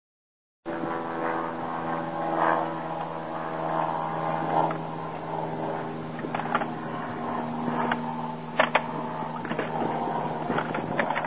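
Single-engine piston aircraft engine and propeller of a Cessna 182 amphibian running at a steady pitch. It starts abruptly about half a second in, with a few sharp clicks or knocks over it.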